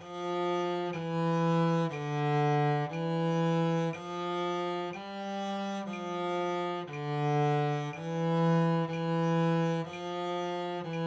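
Cello playing a slow, simple melody with one full-bow note per beat, about one note a second, with one longer held note midway.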